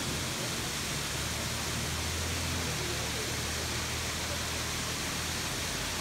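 Waterfall pouring down a steep rock face, a steady rush of falling water.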